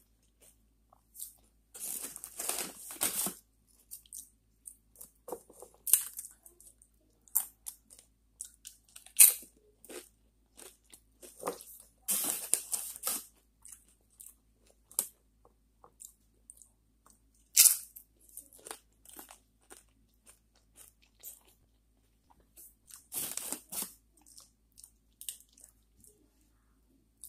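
A person eating tortilla chips from a bowl of taco soup, crunching and chewing. The crunching comes in three heavier spells about ten seconds apart, with scattered sharp clicks and smaller chewing sounds between.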